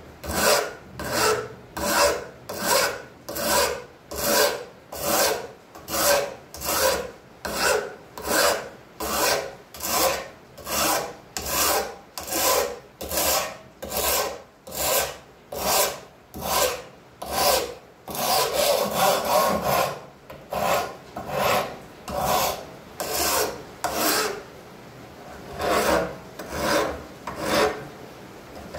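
Flat hand file scraping rust off a heavily rusted steel bayonet scabbard held in a vise, in steady back-and-forth strokes a little over one a second. Past the middle the strokes come quicker and run together for a couple of seconds, and there is a brief pause near the end.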